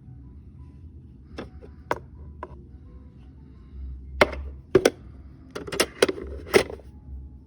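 A series of sharp knocks and clacks: a few light ones early, then several louder ones close together in the second half.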